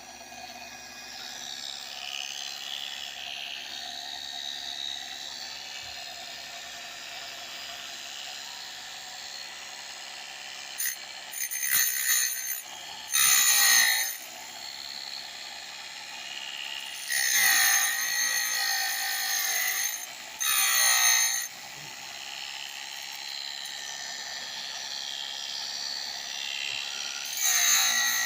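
Small electric grinder running steadily, with about five loud grinding spells as it cuts down the depth gauges (rakers) of a sharpened chainsaw chain, each spell a harsh metal-on-stone grind with a high ring.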